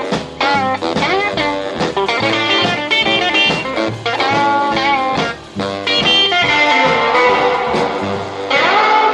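A rock and roll record playing, with guitar prominent; about two-thirds of the way through, the quick notes give way to longer held ones.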